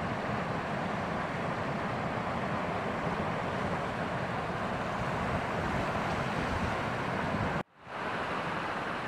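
Steady wash of ocean surf breaking on the shore. It drops out for a split second near the end and then resumes.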